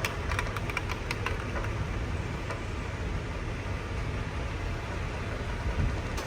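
Truck engine running steadily, heard from inside the cab, with a few light clicks in the first second and a half.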